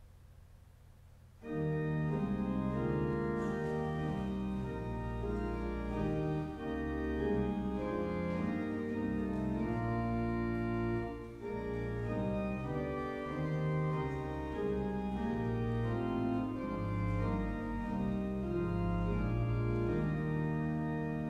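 Pipe organ playing full sustained chords over a deep pedal bass, starting suddenly about a second and a half in.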